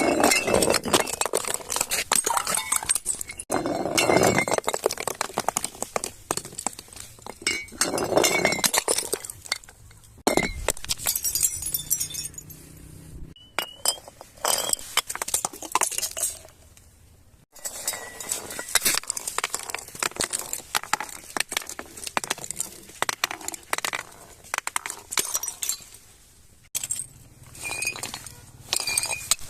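Glass bottles clinking and breaking, with many quick sharp tinkles of glass in dense clusters. The sound comes in separate stretches that stop and start abruptly several times.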